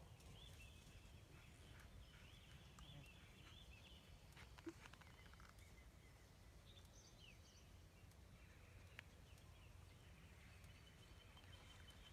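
Near silence: faint outdoor ambience with a low rumble and faint, repeated high chirps of small birds, mostly in the first few seconds.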